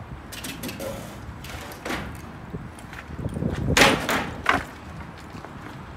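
Wooden pallets being heaved onto a box truck's cargo floor: scattered knocks of wood on wood, then two heavy thuds about four seconds in, half a second apart.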